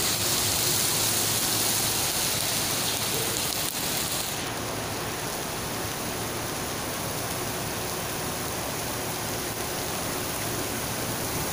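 Heavy rain falling steadily, a dense even hiss; it gets a little softer about four seconds in.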